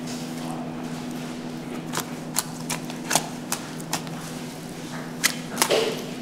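Long knife filleting a large grouper on a wooden chopping block: quiet slicing at first, then from about two seconds in a run of sharp, irregular clicks and taps as the blade knocks against the fish's bones and the block. A steady low hum runs underneath.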